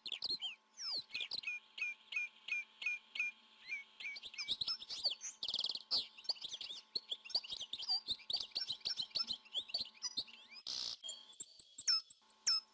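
Birds chirping busily: rapid runs of short, high chirps, many sweeping downward, calling over one another, with a faint steady hum underneath.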